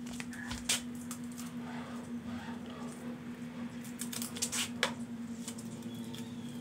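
Light clicks, taps and scrapes from hands working at a motorcycle's plastic rear fender and number plate, most of them about four to five seconds in. A steady low hum runs underneath.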